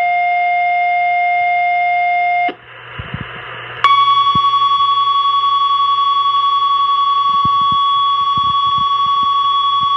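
Fire pager alert tones received over a police scanner's speaker. A steady lower tone cuts off about two and a half seconds in, radio hiss fills a short gap, and then a single long, higher steady tone starts about four seconds in and holds. This is the tone sequence that sets off the fire department's pagers for their test.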